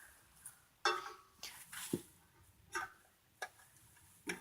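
A few light clicks and knocks, scattered irregularly, with a somewhat louder knock near the end, as equipment is handled; the transformer's hum is not yet heard.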